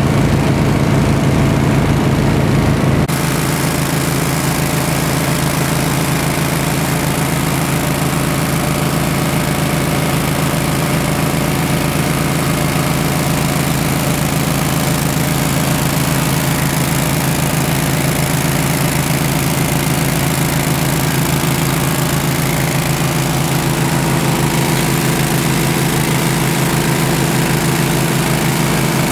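Small ocean gold dredge's engine running steadily at a constant speed, heard close up. It is the dredge working, driving the suction pump and the diver's air supply. The sound shifts abruptly about three seconds in, then holds steady.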